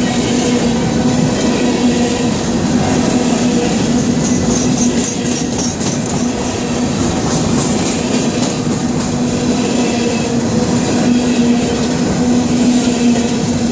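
Freight train cars rolling past at close range: a loud, steady rumble of steel wheels on the rails with a held low tone and short clacks from the wheels.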